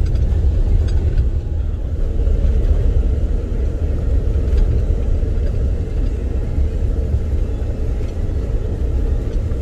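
Car driving along a dirt road, heard from inside the cabin: a steady, loud low rumble of tyres on the dirt and the engine.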